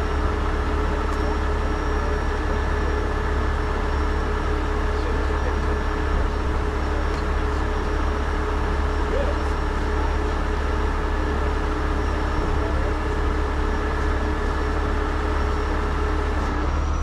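Heavy truck engine running steadily, with a strong low rumble and a steady whine over it; the whine stops near the end.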